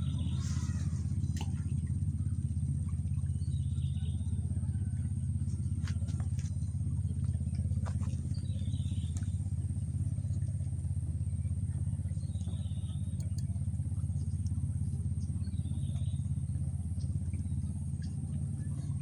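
Steady low motor hum, like a small engine running at an even speed, with faint short chirps every few seconds and a few light clicks over it.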